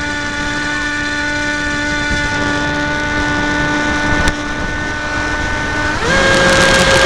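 FunJet's Hyperion brushless motor and pusher propeller whining at a steady pitch, heard through the onboard camera. About six seconds in the throttle is opened: the whine jumps up in pitch and gets louder, with a rush of air. There is a single click a little past four seconds.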